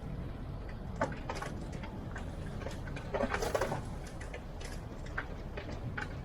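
Car driving on a mountain road, heard inside the cabin: a steady low rumble of road and engine noise with scattered small clicks and ticks, a sharper knock about a second in and a short rattle around three seconds in.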